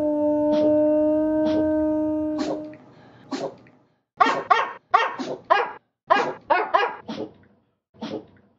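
A small white dog's barks sampled and edited into a tune. It opens on a long, steady howl-like note with a few short barks over it. About two and a half seconds in the note stops and quick runs of short barks follow, in clusters of two to four.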